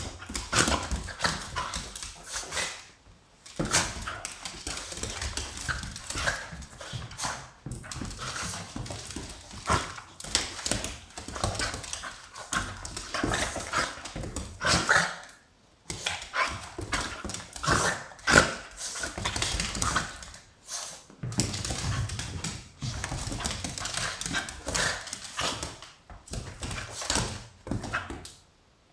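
Small dogs playing rough, a smooth fox terrier and a pugalier, barking in irregular bursts with a few short pauses.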